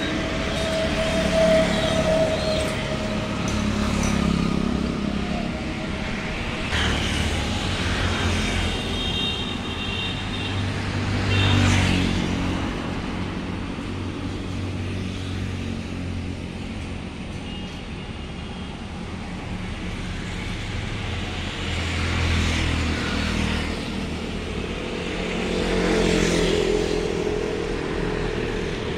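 Motor vehicle engines and road traffic, a steady low hum that swells and fades several times as vehicles pass.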